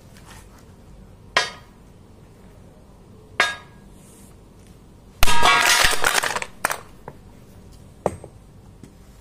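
Sledgehammer striking a stack of hard disk drives: two sharp metallic knocks, then a loud crash with about a second and a half of rattling metal clatter as the stack breaks and the drives scatter, and one more clink near the end.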